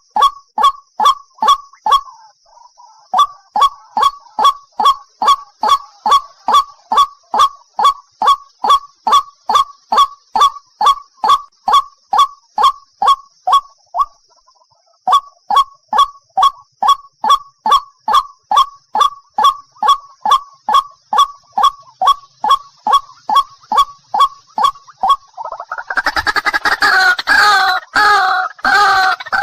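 White-breasted waterhen (ruak-ruak) calling: one short, honking note repeated steadily at about three a second, with brief breaks. About 26 s in it turns into a louder, denser run of overlapping calls.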